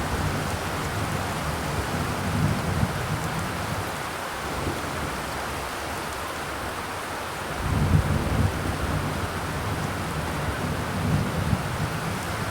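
Steady rain falling, an even hiss. A low rumble swells under it in the first few seconds and again from about eight seconds in.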